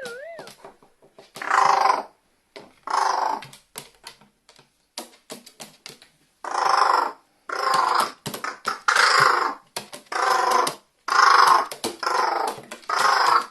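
Pet carrion crow sneezing over and over, about nine harsh sneezes of roughly half a second each, several in quick succession. Water has got into its nose and set off the run of sneezes.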